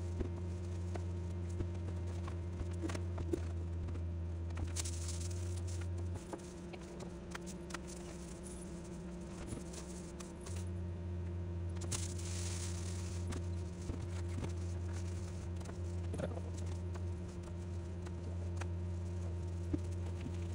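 Aluminium foil crinkling, tearing and being pressed into place by hand, with scattered small clicks and knocks of handling, and louder crackly stretches about five seconds in and about twelve seconds in. A steady low hum runs underneath; it cuts out about six seconds in and returns about four seconds later.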